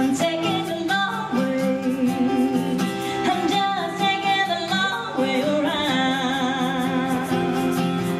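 Live country band playing a break between sung lines: plucked-string accompaniment with a wavering melody line over it.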